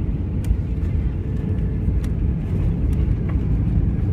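Airliner cabin noise at touchdown: a steady low rumble of engines, airflow and wheels on the runway, with a few sharp clicks.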